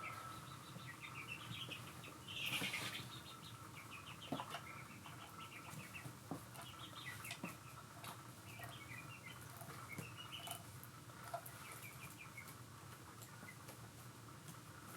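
Faint bird chirping: short runs of high chirps come every second or so, with a few light clicks in between.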